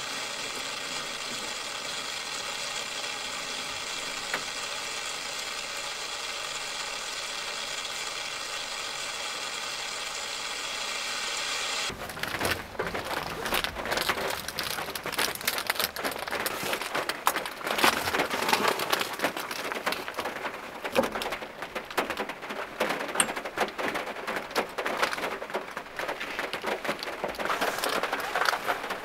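A steady even hiss that cuts off abruptly about twelve seconds in, then heavy rain pattering on a small van's roof and body in dense, irregular drops, growing louder toward the end.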